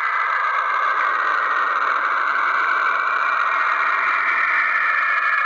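Space sound of Saturn: radio emissions from its magnetic field converted to audio. A steady, unbroken hissing drone sits in a mid-to-high band and holds an even level throughout.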